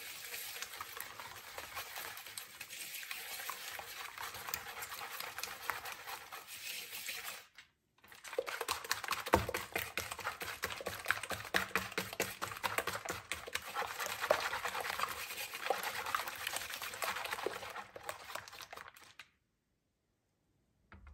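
Wire balloon whisk beating eggs and sugar in a bamboo bowl: fast, continuous scraping and ticking of the wires against the bowl and through the liquid. It breaks off briefly about seven and a half seconds in and stops near the end.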